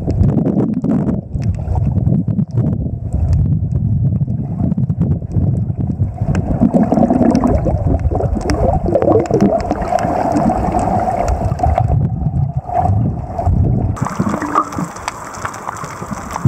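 Underwater sound picked up by a camera in the sea: a loud, muffled low rumble of moving water with scattered clicks and crackles. About 14 s in, the rumble falls away and a brighter hiss and crackle take over.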